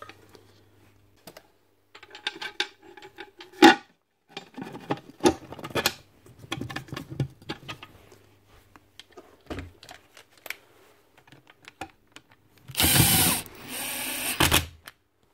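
Clatter and knocks of a plastic transformer lid being handled and fitted, then near the end a cordless drill-driver runs for about two seconds, driving a lid screw home, easing off partway and ending with a knock.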